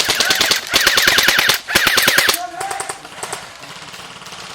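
Airsoft M60 machine gun firing rapid full-auto bursts, with two short breaks; the loud firing stops about two and a half seconds in, leaving fainter shots.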